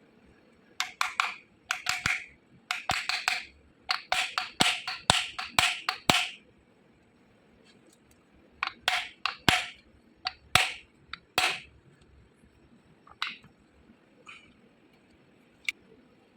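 Runs of sharp taps or knocks on hard parts, several a second, typical of tool work on an electric motor during bearing replacement. The runs last about six seconds, pause, come again for about three seconds, and end with three single taps spaced well apart.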